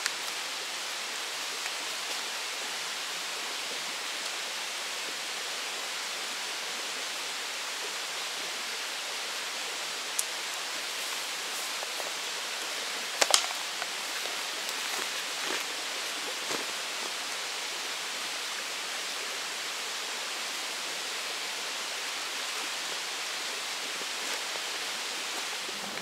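Steady rushing of flowing water, even and unbroken, with a few faint knocks; the sharpest tap comes about thirteen seconds in.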